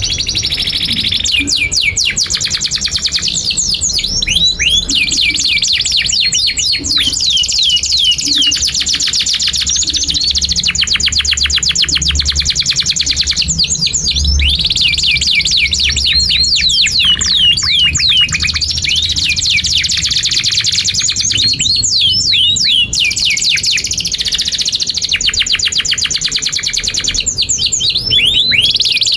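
Domestic canary singing a long, nearly unbroken song of rapid trills and fast repeated chirping notes, high-pitched.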